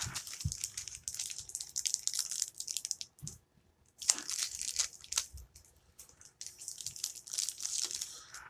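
Plastic packaging crinkling and rustling as it is handled, in three bursts of crinkling with short pauses between them.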